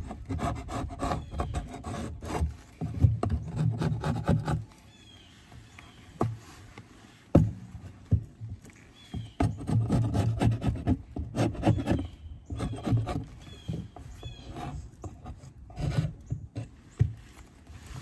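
Metal hive tool scraping propolis off the wooden frame of a beehive, in bursts of short rasping strokes with a quieter pause of a few seconds near the middle.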